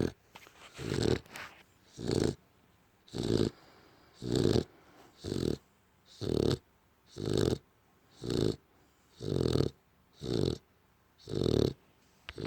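American Bully dog snoring loudly in its sleep, a rasping snore about once a second with short quiet gaps between.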